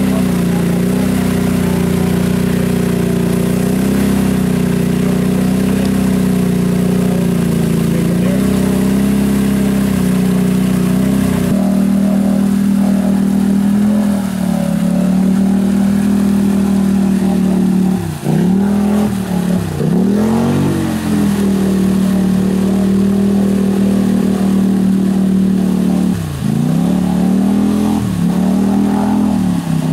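ATV engine held at high revs with its wheels spinning while the quad is stuck in deep mud. After a change about a third of the way in, a second stuck quad's engine runs on at high revs, its pitch dropping sharply and recovering four times as the load on it changes.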